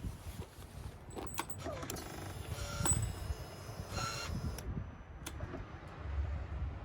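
Scattered light metallic clicks and taps, some leaving a brief ring, as small metal parts or tools are handled.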